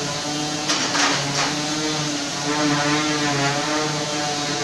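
A machine running with a steady, pitched hum, with a few short hissing bursts about a second in.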